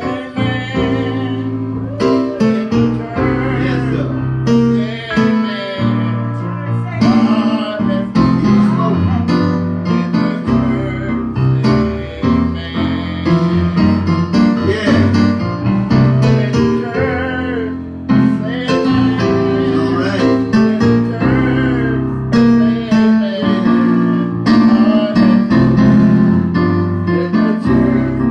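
Gospel music from a church band: electric keyboard playing chords, with singing over it.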